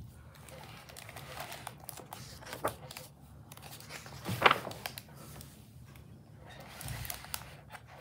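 Hardcover picture book being opened and its pages turned by hand: paper rustling and crinkling in several short bursts, the loudest about halfway through.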